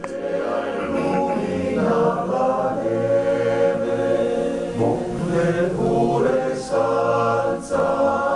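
A men's choir singing a cappella in several parts, holding long chords with short breaks between phrases.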